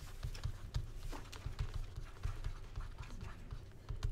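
Stylus tapping and scratching on a tablet screen while handwriting, a quick irregular run of small clicks over a low steady hum.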